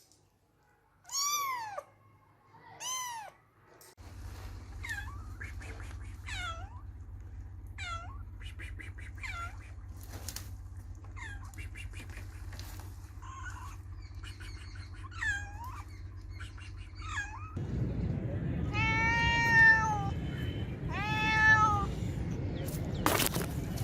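Kittens and cats meowing again and again in high, arching meows: two clear calls first, then a run of short, faint meows over a low steady hum, and near the end louder, longer meows over heavier background noise. A sharp click comes just before the end.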